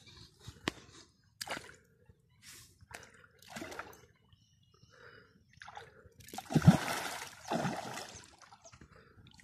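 A fish, the gulfam (common carp), thrashing at the water surface close to shore: a run of short separate splashes, then a longer, louder bout of splashing about two-thirds of the way through.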